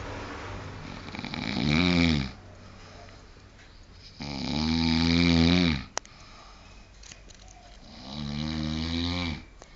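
A person snoring: three long, droning snores about three and a half seconds apart, with quieter breathing between them. A single sharp click about six seconds in.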